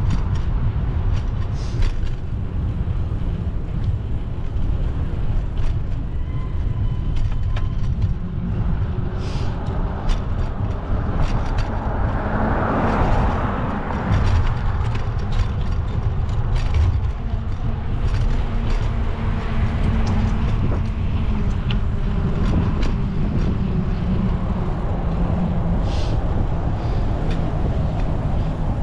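Road traffic heard while riding a bicycle along a city street: a steady low rumble, with a vehicle passing close about twelve seconds in, swelling and then fading. A few light clicks are scattered through it.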